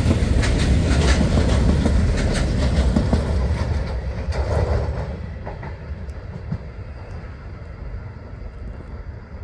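Freight train of VTG Uacs silo wagons rolling past, the wheels clicking over the rail joints with a low rumble. The last wagon passes about four seconds in and the sound then fades as the train moves away.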